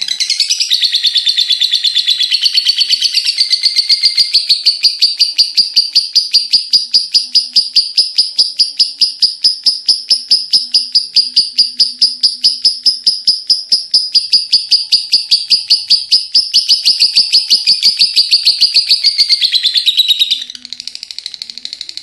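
Lovebird's ngekek: a long, unbroken chattering trill of rapid, high-pitched notes, about five or six a second, that stops about twenty seconds in.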